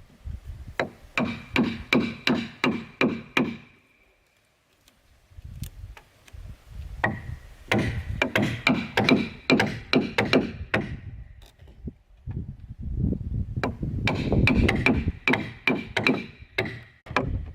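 Hand tool striking wood in quick repeated blows, about three or four a second, coming in three runs with short pauses between them, as wood is chopped to cut holes.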